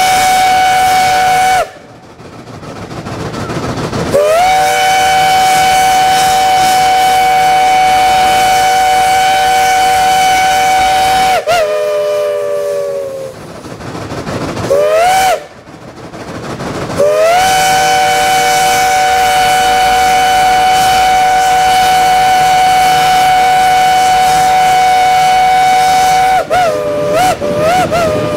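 Shay steam locomotive's whistle sounding a chord of several notes in long blasts: one ending about two seconds in, then two long blasts of seven to nine seconds, the pitch sagging as the whistle closes after the first, with a short blast between them. Three quick toots, each bending in pitch, come near the end.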